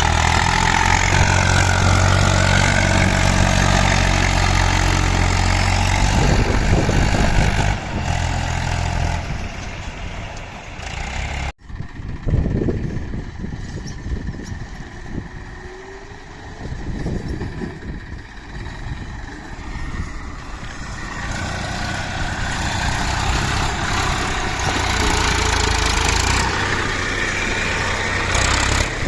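Diesel tractor engine running, with a strong low hum for the first several seconds. It breaks off abruptly about twelve seconds in, comes back quieter and rougher, then builds louder again toward the end.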